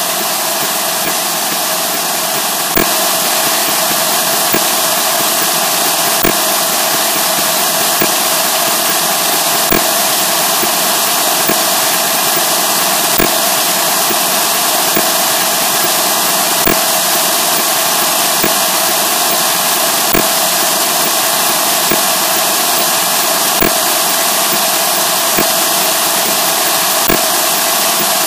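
Loud, harsh, steady distorted noise with a short click about every second and three quarters.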